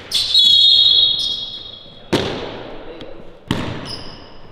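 A referee's whistle blown once, loud and high, for about a second. Then a basketball bounces twice on the hardwood gym floor, each bounce echoing in the large hall.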